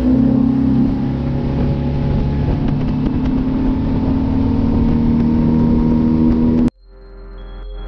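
Motorboat engine running steadily at speed, with a rush of wind and water. It cuts off suddenly near the end and music fades in.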